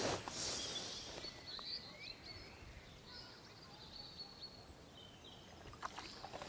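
Quiet outdoor ambience with faint, distant birdsong chirping.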